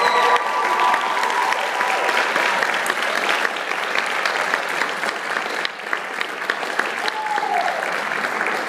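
Audience applauding steadily, with a few voices cheering over the claps during the first second or so.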